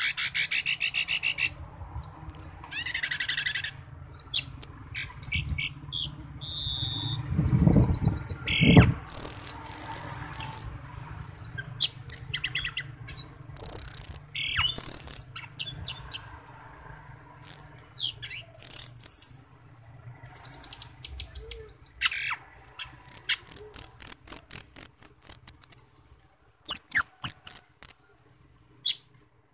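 Asian glossy starling (cucak keling) singing: a fast, varied string of high chirps, whistles and sliding notes broken up by rapid rattling trills. A low thump comes about eight or nine seconds in.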